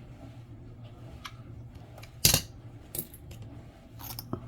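Nickels clinking as they are set down or dropped onto other coins: one loud metallic clink with a short ring about two seconds in, then a few lighter clicks near the end.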